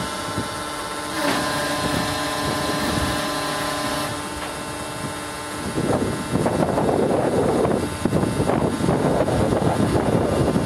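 Steady multi-tone whine of the truck crane's electric-motor-driven hydraulic pump running under test. It grows louder about a second in. About six seconds in, a louder, rough, uneven noise takes over.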